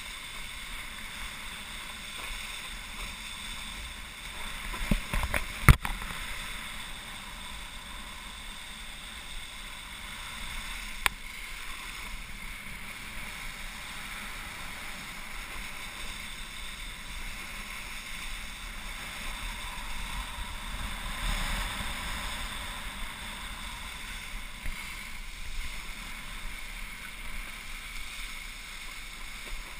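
A wakeboard skimming over lake water with steady spray and wind rushing over a helmet-mounted camera. A cluster of sharp knocks about five to six seconds in, and a single knock about eleven seconds in.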